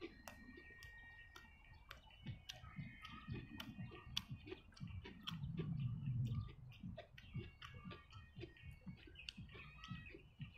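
Close-up chewing of a soft steamed bun and fried onions, with wet mouth clicks and smacks, louder for a moment about halfway through. Birds chirp faintly in the background.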